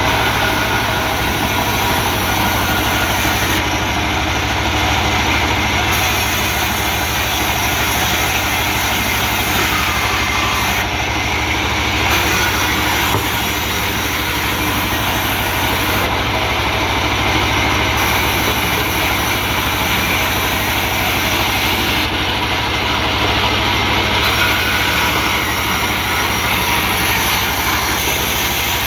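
A heavy engine running steadily at an even speed, without letup.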